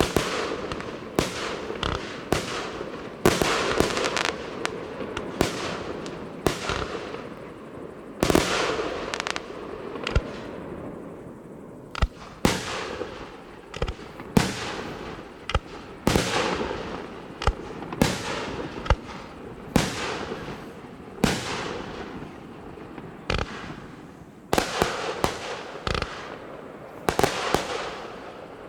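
Fireworks display: a steady run of aerial shell bursts, about one loud bang a second, each followed by crackling and a trailing echo.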